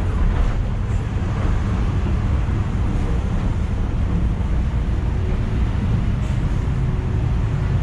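Steady low rumble of a passenger bus's engine and road noise, heard from inside the cabin.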